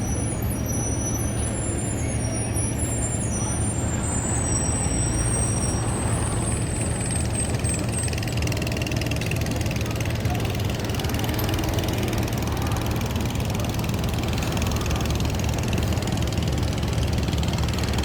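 A large engine running steadily at low speed, a deep even hum, with thin high wavering squeals over it for the first several seconds.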